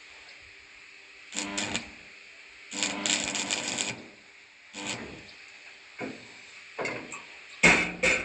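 Metal parts clattering and clicking in short bursts, about six times, with a longer stretch of rattling about three seconds in and the loudest clanks near the end.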